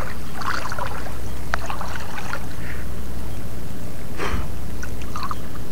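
Shallow seawater sloshing and splashing around the camera as someone wades and works through seagrass, over a steady low rumble. There are scattered small splashes and clicks, and a louder splash about four seconds in.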